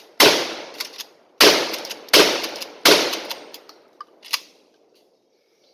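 Mossberg 500 Chainsaw 12-gauge pump-action shotgun firing birdshot: four shots in quick succession within the first three seconds, each trailing off, followed by two lighter clicks about four seconds in.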